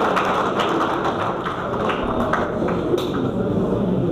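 Audience clapping: a dense, steady patter of many hands.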